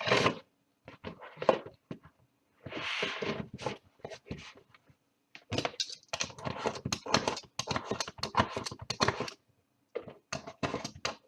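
A trading card box being handled and opened: a brief tearing rustle of wrapping about three seconds in, then a run of quick clicks and taps of cardboard and packaging.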